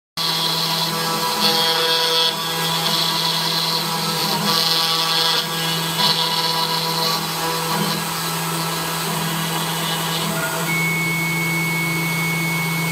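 The 775 spindle motor of a desktop CNC router running steadily while its bit carves a workpiece turning in the rotary axis. Several louder spells of cutting noise come and go. A little after ten seconds in the cutting noise stops and a steady high whine comes in over the spindle's hum.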